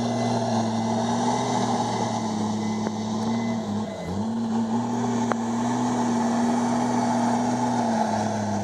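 Komatsu D51EX bulldozer's diesel engine running steadily under load, its pitch dropping sharply for a moment about four seconds in before picking straight back up.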